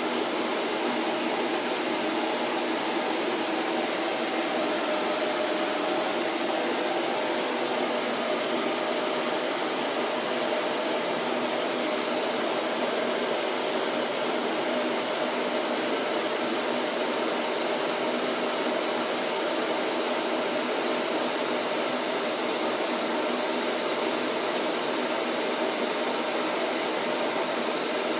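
Vacuum cleaner running steadily, a constant even whooshing hum with a faint motor tone and no change in speed.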